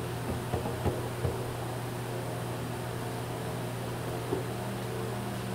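Steady low hum with an even hiss over it from running workshop equipment. Three light knocks come in quick succession in the first second and a half, and another about four seconds in.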